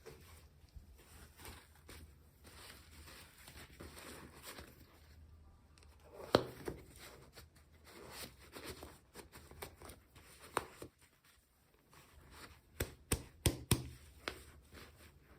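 Packaging and small plastic pieces being handled and unwrapped close up: light rustling and tearing, with a sharp click about six seconds in, another about ten seconds in, and a quick run of four clicks near the end.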